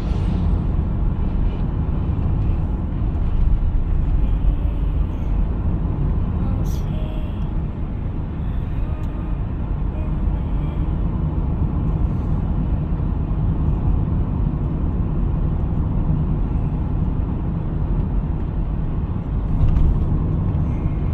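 Steady low rumble of a car driving on the road, heard inside the cabin: tyre and engine noise.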